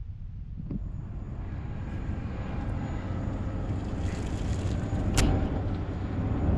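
A motor vehicle approaching, its noise swelling steadily over several seconds, with one sharp click a little past the middle.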